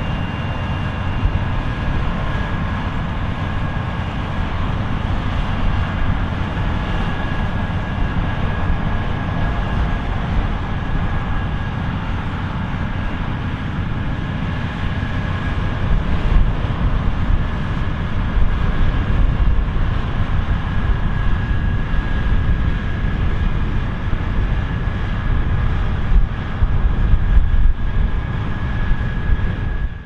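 Claas Lexion 8900 combine harvester running: a steady, heavy diesel and machinery drone with a constant high whine over it. It grows louder and rougher from about halfway through.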